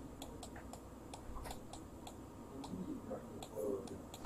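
Faint quick ticking, about four to five light ticks a second, over a low steady room hum.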